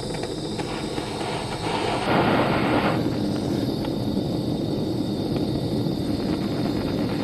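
An electric power tool running steadily with a thin high whine, its grinding noise swelling for about a second around two seconds in.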